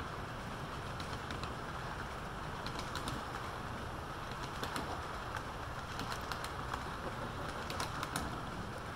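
Model freight train rolling past: a steady rolling hum from the wheels on the track, with clusters of light clicking every second or two as the cars' wheel sets pass over rail joints.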